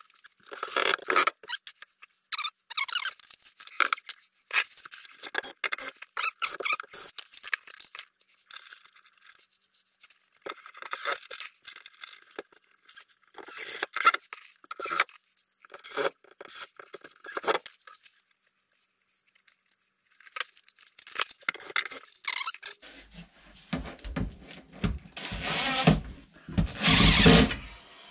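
Rapid clicks and scrapes as a metal L-shaped bracket and its screws are handled and lined up against the unit, then a battery drill driving screws in two short loud bursts near the end.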